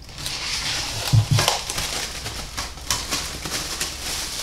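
Cling film crinkling and crackling as it is peeled off a steel bowl of marinated chicken, with many small clicks and two dull knocks about a second in.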